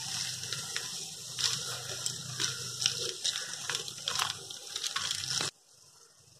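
A spoon stirring crushed ice and soda water in a glass: a steady fizzing hiss with irregular clinks of spoon and ice against the glass. It cuts off suddenly about five and a half seconds in.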